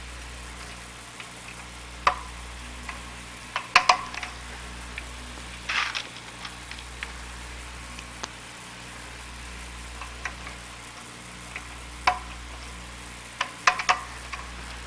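Sharp plastic clicks, single and in quick clusters, as push-button knobs are pressed onto an oscilloscope's switch extenders and the push-button switches are pressed down. Under them runs a steady hiss and a low hum from an old film soundtrack.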